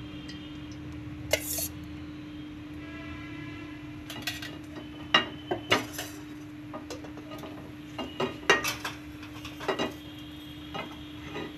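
A spatula clinking and scraping against a non-stick frying pan as it stirs the oil: a series of sharp taps and knocks through the second half, over a steady low hum.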